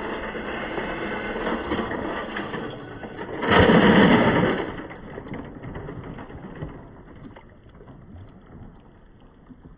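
A large mass of marbles rolling and clattering along a marble-run track as a dense rattle. A louder rush comes about three and a half seconds in, then the rolling thins out and fades.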